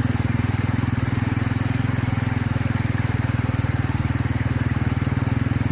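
Small motorcycle engine running at a steady speed, its rapid firing pulses even throughout.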